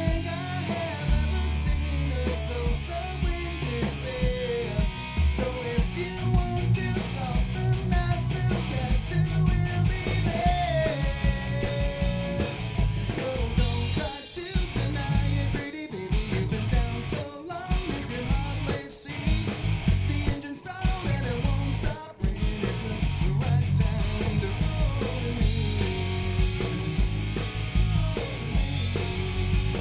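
Live rock band playing: electric guitars, bass guitar and drum kit, with a melodic line gliding over the rhythm section. The band drops out briefly a few times in the middle.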